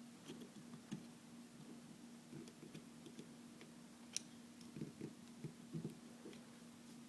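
Faint, scattered small clicks and ticks of hands handling an opened plastic car key fob, with one sharper click about four seconds in, over a faint steady hum.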